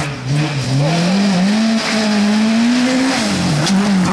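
Rally car engine revving hard on a gravel stage, its pitch climbing steadily for about three seconds, dipping briefly about three and a half seconds in, then rising again as the car passes close.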